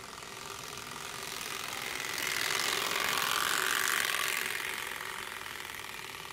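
Turbospoke bicycle exhaust: its plastic card flaps against the spinning spokes, giving a fast, motorbike-like rattle that grows louder as the bike approaches, peaks about three to four seconds in, then fades as it rides past.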